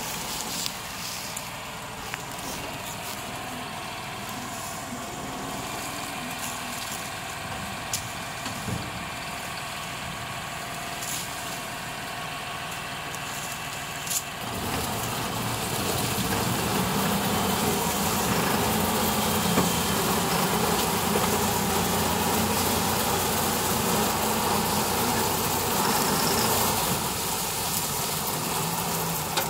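New Holland tractor's diesel engine running steadily while driving its side-mounted hydraulic sugarcane harvester through standing cane, with occasional sharp clicks. About halfway through, the sound becomes louder and fuller.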